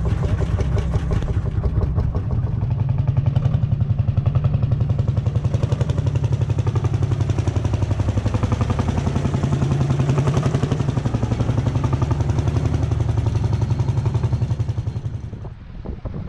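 Lanz Bulldog single-cylinder two-stroke hot-bulb engine running with a steady, rapid beat of firing strokes; the engine sound drops away about a second before the end.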